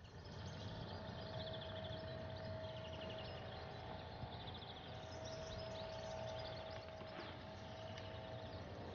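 Outdoor ambience: birds trilling in short repeated bursts over a steady low rumble, with a thin steady hum coming and going.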